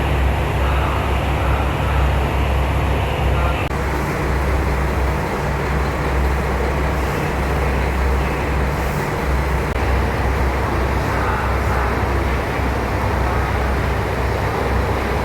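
Train running, heard from inside the carriage: a steady low drone under continuous rumbling running noise.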